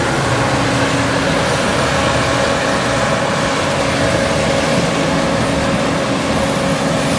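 Vehicle engine running at a steady speed, with a constant hum and no change in pitch.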